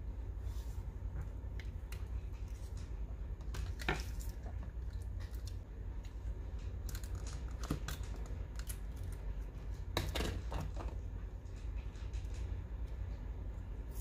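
Irregular light taps, clicks and paper handling from hands working on a journal page with stationery, over a steady low hum.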